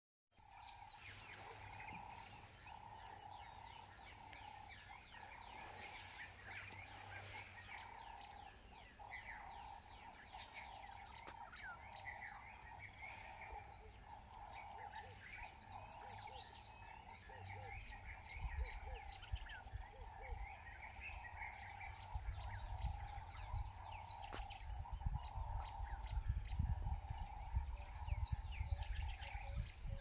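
Many small birds chirping and twittering in quick, short notes over a steady hum. From about halfway, gusts of wind buffet the microphone with a low rumble that grows louder toward the end.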